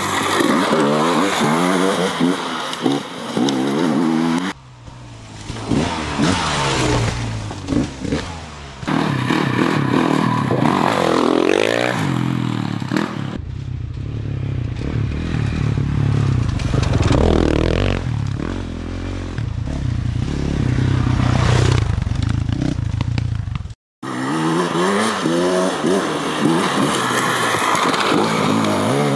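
Dirt bike engines revving hard, their pitch repeatedly climbing and dropping, in several clips joined by abrupt cuts.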